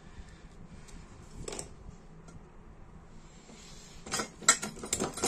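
Faint handling noise, then about four seconds in a quick run of sharp clicks and clinks as a small hand tool and small lighter parts are put down on the workbench.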